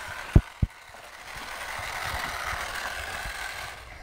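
Battery-powered toy stand mixer whirring steadily, with two low thumps in the first second.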